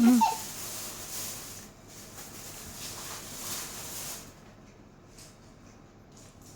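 Soft rustling from a Breath-A-Tech inhaler spacer's plastic parts being handled and fitted together. The rustle stops suddenly about four seconds in, and a few faint clicks follow.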